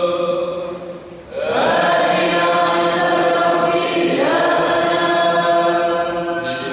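A choir chanting a Syriac liturgical hymn. There is a short break about a second in, and new phrases start at about one and a half seconds and about four seconds.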